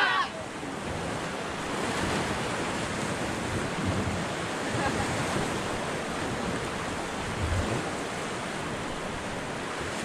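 Steady rush of river water around a raft just after a rapid, with wind buffeting the microphone and a couple of low thumps.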